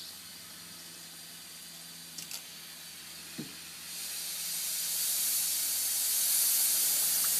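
Compressed air hissing through a gravity-feed spray gun with its air cap loosened, back-flushing isopropyl alcohol to clean the gun's inside valve assembly. Faint at first with a couple of light clicks, the hiss swells about four seconds in and then holds steady.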